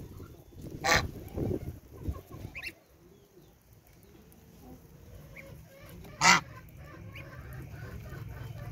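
Domestic goose honking twice, short and loud, about a second in and again about six seconds in, with faint gosling peeping between the calls.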